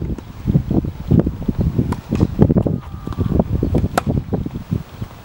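Wind buffeting the microphone in gusts, with one sharp crack of a tennis ball struck by a racket about four seconds in.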